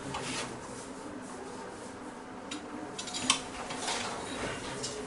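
A few sharp clinks and knocks of pots and metal utensils being moved about, the clearest near the middle and toward the end.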